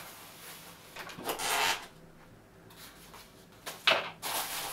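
Foam canopy of a model plane pulled off its fuselage with a rubbing scrape, then a sharp knock about four seconds in as it is set down on a wooden desk.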